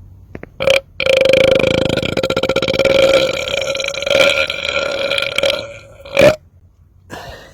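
A man's long, loud belch held at a steady pitch with a fast buzzing rattle, lasting about four and a half seconds. A short burst comes just before it and another just after it.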